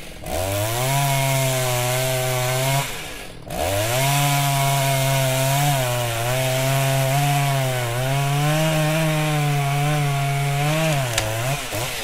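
Chainsaw running and revving as it cuts, in two long stretches with a short break about three seconds in. Its pitch climbs at each start and then dips and recovers.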